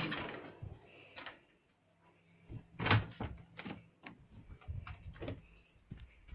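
A door being handled: a handful of short knocks and clunks, the loudest about three seconds in.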